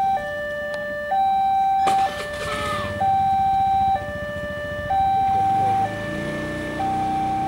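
Railway level-crossing warning alarm sounding from its loudspeaker: an electronic two-tone signal alternating between a higher and a lower tone, each held a little under a second, warning of an approaching train. A low engine hum builds under it near the end.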